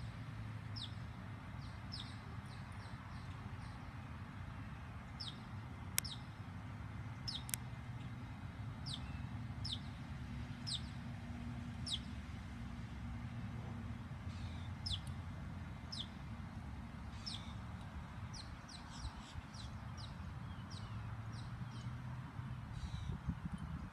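Birds chirping again and again, short high notes that fall in pitch, over a steady low hum. Two sharp clicks come about six and seven and a half seconds in.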